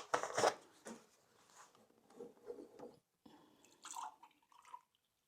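Faint kitchen handling noises while baby porridge is being made: two short noisy sounds at the start as something is set down, soft scattered clatter, and a brief ringing sound about four seconds in.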